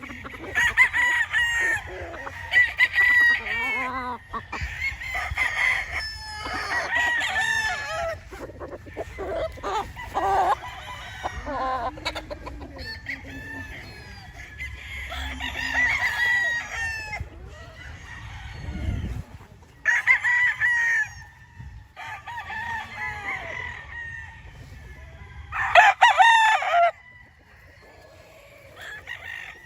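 Several roosters crowing again and again, their calls overlapping at times and then pausing between bouts.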